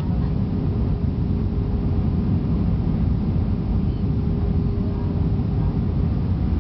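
Steady cabin noise of a jet airliner descending on approach, heard inside the cabin: a low, even rumble of engines and airflow with a faint steady hum above it.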